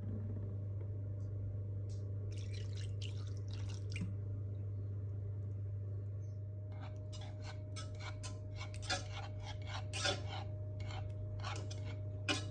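A small metal whisk clicking and scraping against a saucepan as cream cheese and milk are whisked, in a short stretch about two seconds in and then more densely from about seven seconds on. A steady low hum runs underneath throughout.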